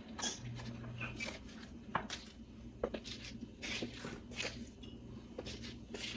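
Faint handling sounds of a damp paper towel wiping a mirrored tray: irregular rustles, squeaks and small knocks, over a faint low steady hum.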